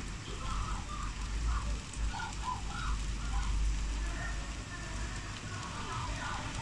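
Steady rain falling on roofs and pavement: an even hiss and patter over a constant low rumble.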